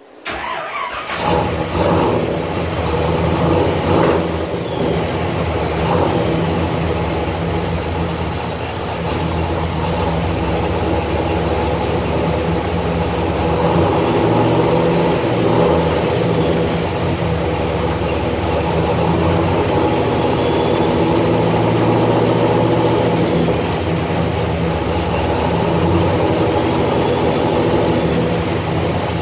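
Small-block V8 (a 400 cubic inch small-block Chevrolet) coming in abruptly and running steadily while the T-56 six-speed is run through the gears on a newly bled hydraulic clutch. A few sharp knocks sound in the first several seconds, and the engine note swells a little now and then.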